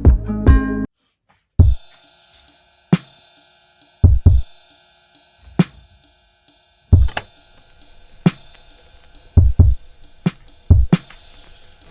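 Background music: a sparse drum-machine beat with kick and snare hits over a soft sustained pad, after a short break in the music about a second in.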